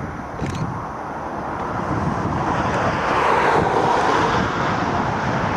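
Jet engine noise from an Airbus A320 rolling along the runway, swelling louder about halfway through, with wind rumbling on the microphone.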